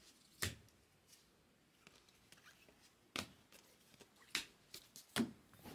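Baseball cards being flipped through a stack by hand: faint slides and taps, with four sharp clicks, one about half a second in, one about three seconds in, and two more near the end.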